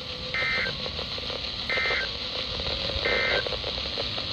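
Emergency Alert System SAME end-of-message code: three short warbling digital data bursts, about a second apart, over steady radio hiss and hum, marking the end of the weather alert.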